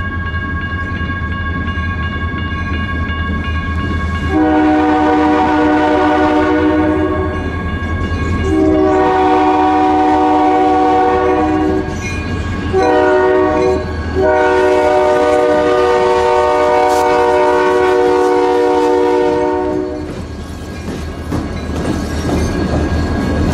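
Diesel locomotive's air horn sounding the grade-crossing signal: two long blasts, a short one, then a final long one, warning of the train's approach to a road crossing. A steady low rumble from the train runs under it.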